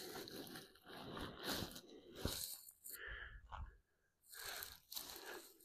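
Footsteps crunching unevenly over rough ground, with a short pause about four seconds in.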